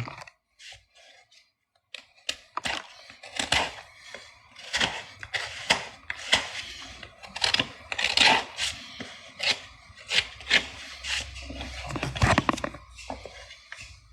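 Horse hoof being scraped and trimmed with a farrier's hand tool: rough scraping strokes, roughly one a second, after a short quiet start.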